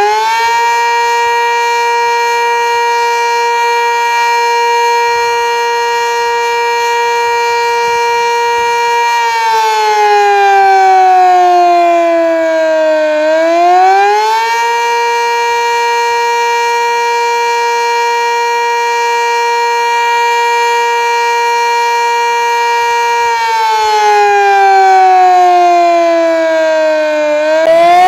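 Sentry 3V8 outdoor warning siren sounding in a wail pattern. It holds a steady high pitch for about nine seconds, slides down over about four seconds, rises quickly back to the top, holds again, then slides down once more and climbs back near the end.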